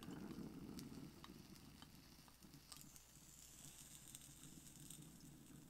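Faint, steady bubbling of water through the percolator of a glass bong as one long hit is drawn, with a lighter flame held to the bowl.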